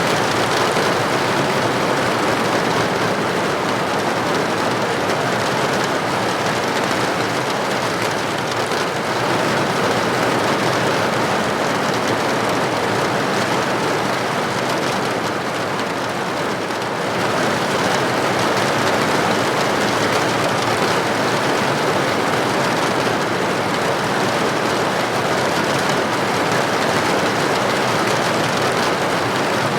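Steady rain heard from indoors, a dense even hiss that eases slightly about halfway through and then picks up again.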